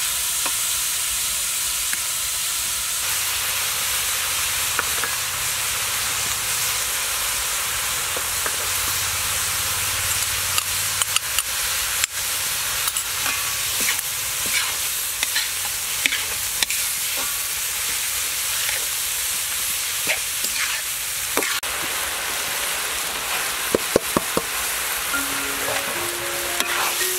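Food sizzling in a wok over a fire while a metal spatula stirs and scrapes it against the pan, with frequent short clicks of the spatula on the metal.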